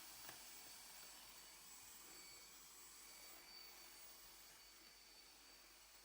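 Vacuum cleaner running steadily: an even hiss with a faint high whine from its motor.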